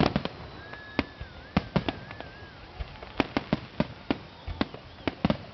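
Aerial fireworks going off: a string of sharp bangs and crackles at irregular intervals, bunched several a second at times, with a thin wavering whistle from about one to two and a half seconds in.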